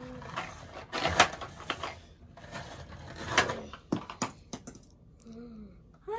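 Toy trucks pushed back and forth across the floor, their plastic wheels rolling and rattling in two long stretches, followed by a few sharp knocks as they are set down.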